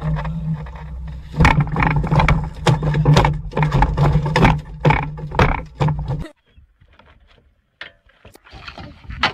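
Boat's outboard motor running steadily, overlaid by a rapid series of loud knocks and bangs that stop abruptly about six seconds in.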